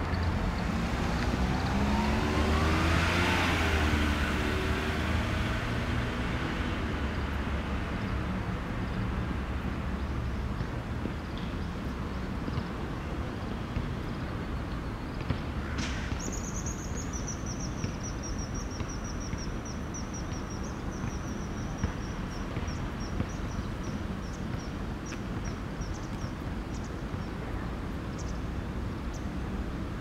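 A road vehicle passing, its engine and tyre noise swelling to a peak about three seconds in and then fading into a steady low traffic rumble. About halfway through a sharp click is heard, then a faint high-pitched pulsing tone for about ten seconds.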